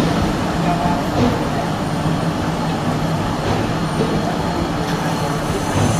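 Milling machine running steadily, a constant mechanical noise with a low hum.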